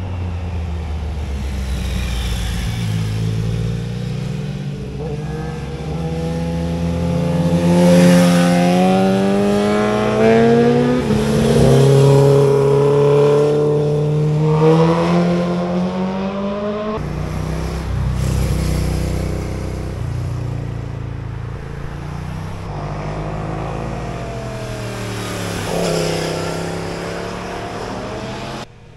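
Motorcycles passing through a hairpin bend, engines revving up and dropping back as they change gear, one after another; the loudest pass comes about a third of the way in.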